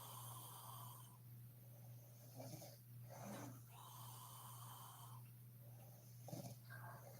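A sleeping woman snoring faintly, with slow breaths drawn in and let out, each lasting about a second, over a steady low hum.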